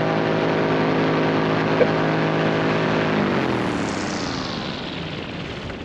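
Paramotor's Top 80 single-cylinder two-stroke engine and 140 propeller running steadily in flight. About three seconds in the engine is cut, and the pitch falls as the engine and propeller spin down, leaving a rush of wind. A brief click about two seconds in.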